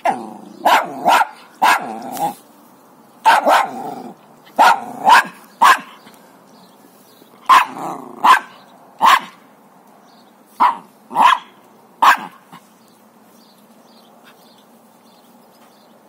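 Jack Russell terrier barking: about fourteen short barks in pairs and threes, stopping about twelve seconds in.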